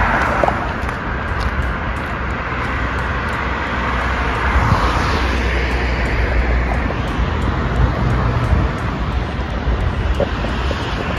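Road traffic on a multi-lane road below: a steady rush of tyres and engines, swelling as cars pass at the start and again about four to five seconds in.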